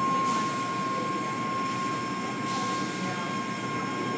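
Automatic tunnel car wash running: steady machinery noise with a constant high whine, and the hiss of water spray swelling up briefly a couple of times.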